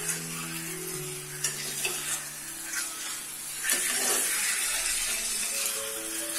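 Boneless chicken thigh pieces sizzling in oil on a hot tawa with crushed garlic, as their water and fat cook out, with a few short spattering pops.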